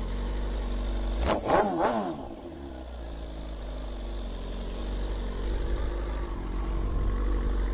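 2021 BMW S1000RR's inline-four engine idling while it warms up from a cold start. About a second in, a quick rev with two sharp clicks falls back to a steady idle.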